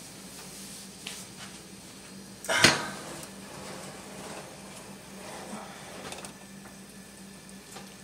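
Metal oven rack and a disposable aluminium foil roasting pan being pulled out of an oven: one short, loud metallic scrape and clatter about two and a half seconds in, with lighter clinks and rustles of the foil pan after it. A faint steady hum runs underneath.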